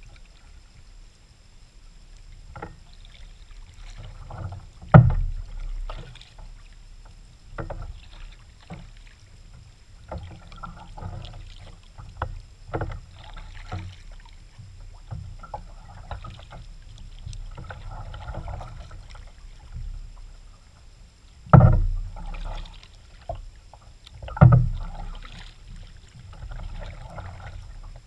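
Kayak paddle strokes splashing and dripping in the water at an irregular pace. Three loud thumps stand out: one about five seconds in and two close together near the end.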